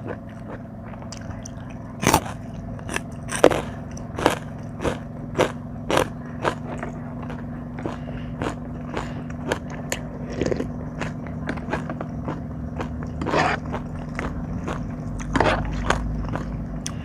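Close-miked eating of spicy seafood papaya salad: crisp bites and chewing, in irregular crunches about one or two a second. A steady low hum runs underneath.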